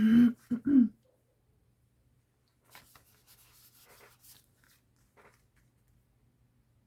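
A short hummed voice sound in the first second, then faint crinkling and rustling of paper being handled for a few seconds.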